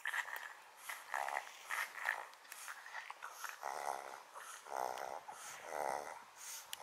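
A small Tibetan Spaniel–Pekingese mix dog making a string of short, rough vocal sounds, grumbling and snorting. They come in quick pairs at first and then about a second apart.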